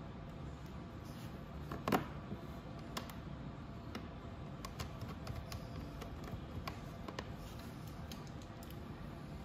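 Scattered light clicks and ticks of bolts and a hand tool being worked while fastening an ATV's plastic body panels, with one sharper click about two seconds in, over a faint steady low hum.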